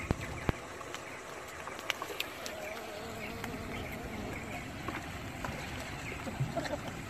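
Penguins' feet slapping on wet concrete: scattered sharp taps over a steady background hiss, the clearest near the start and around two seconds in.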